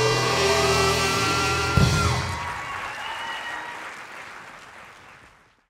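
A jazz band with brass holds a final chord that ends on a sharp accent about two seconds in. Audience applause follows and fades out.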